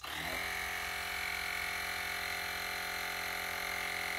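LEXIN battery-powered portable tire inflator running, its small compressor pumping air into a car tire: a steady buzzing hum that cuts in suddenly and holds an even pitch.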